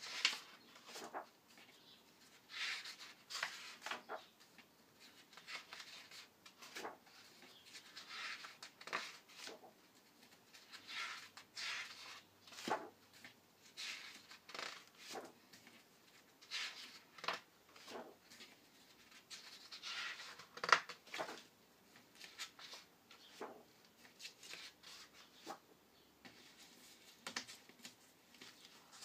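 Paper pages of a large, worn picture book being turned and handled, making repeated short rustles and crinkles with an occasional sharp tap every second or two.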